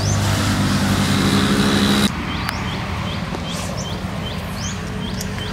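A motor runs steadily with a low hum and cuts off abruptly about two seconds in. Short, high, rising chirps then repeat about twice a second.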